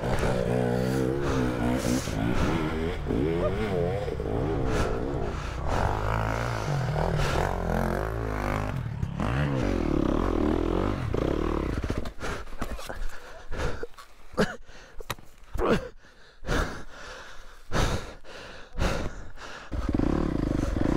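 Yamaha YZ250F four-stroke single-cylinder dirt bike engine, heard through a helmet-mounted mic, revving up and down under load on a hill climb. In the second half the throttle goes on and off in short blips with brief dips in sound. Steady running returns near the end.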